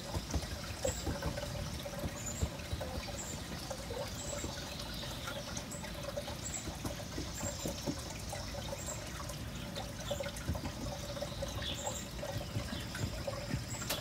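Hands smoothing and patting damp sand flat in a plastic utility tray: soft scraping with a few light taps, over a steady background hum.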